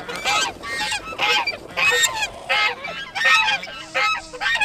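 Several domestic geese honking loudly and repeatedly, calls overlapping in quick succession.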